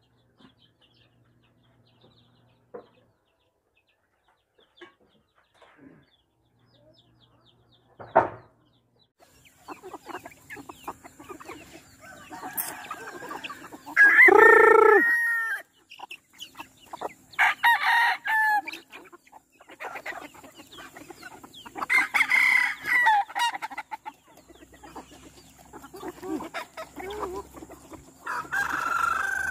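Mostly quiet at first, with a single sharp knock about eight seconds in. Then a flock of backyard chickens clucking as they peck at scattered feed, with roosters crowing several times. The loudest crow comes about halfway through.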